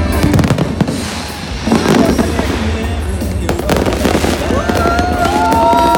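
Fireworks bursting and crackling in quick, irregular bangs over background music with a steady low beat. Near the end, whistles glide up and down in pitch.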